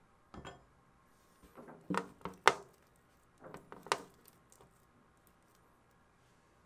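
Kitchenware clinking and knocking: a handful of light, sharp clinks, some briefly ringing, the loudest about two and a half seconds in and another just before four seconds.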